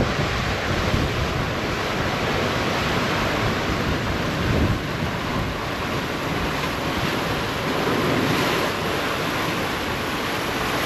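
Wind buffeting the microphone over the rush of waves past a sailboat under way in a rough sea: a steady rushing noise with gusty low rumbles.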